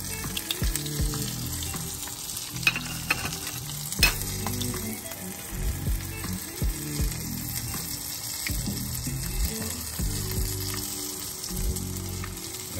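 A seasoned crappie fillet shallow-frying in hot grease at medium-high heat, with a steady sizzle. A couple of sharper clicks come about three and four seconds in.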